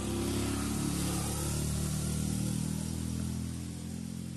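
A motor vehicle's engine running steadily with a low hum, growing fainter over the last second or so.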